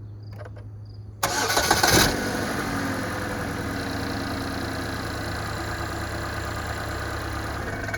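2.4 Ecotec four-cylinder engine with a freshly replaced timing chain set, cranked and starting about a second in, then settling into a steady idle and cutting off at the very end.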